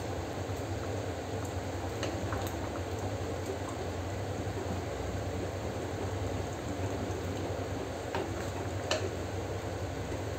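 Thick bean curry simmering on a low flame in a clay pot, giving a steady soft bubbling hiss. A wooden spatula stirs it, with a few faint knocks against the pot.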